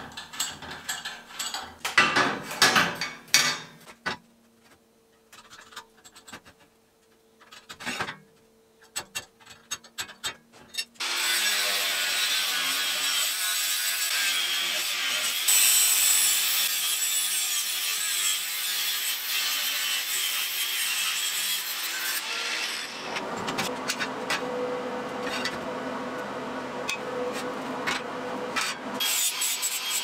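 Angle grinder with a cut-off disc cutting through square steel tubing: a steady, high grinding hiss that starts suddenly about a third of the way in, gets louder a few seconds later as the disc bites, and after about ten seconds gives way to a softer, lower whirr. Before it, scattered light scraping and tapping of the steel being marked and handled.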